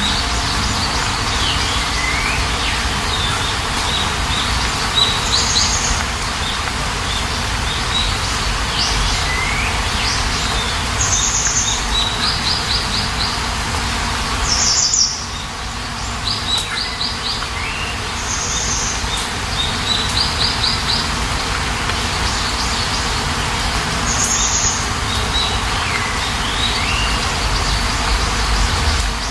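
Songbirds chirping over a steady hiss of rain. A short high trill recurs about every five to six seconds, between runs of quick repeated notes and falling whistles. The hiss drops briefly about halfway through.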